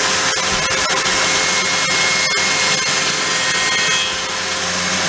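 Circular saw mounted under a homemade saw table, running at full speed with a steady whine while a test piece of timber is ripped against the fence.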